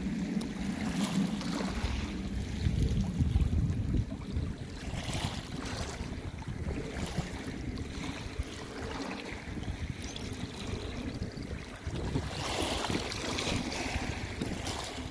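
Small waves lapping and washing over shingle at the water's edge in uneven surges, with wind rumbling on the microphone, heaviest in the first four seconds.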